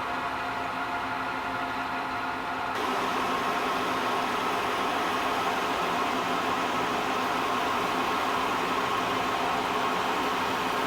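Metal lathe running steadily as it turns a steel shaft, an even machine noise with a faint hum, getting a little louder about three seconds in.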